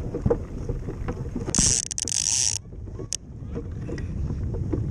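Ice boat's runners rumbling and clattering over lake ice at speed, with wind on the microphone. About a second and a half in, a loud hiss lasts about a second and cuts off sharply, and a single sharp click follows near the middle.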